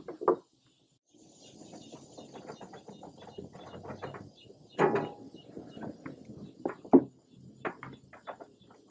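A rubber gas hose being handled and pulled through a metal grill frame: continuous rustling and scraping, broken by a few sharp knocks of the hose or its fitting against the frame.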